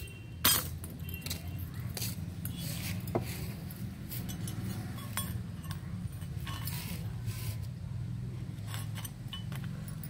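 Clay bricks being scraped and knocked against each other by hand, with small steel spoons clinking against them: scattered scrapes and clicks, and a sharp knock about half a second in. A steady low hum runs underneath.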